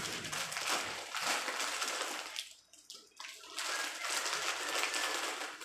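Plastic snack bags crinkling and rustling as they are handled, with a short lull about halfway through.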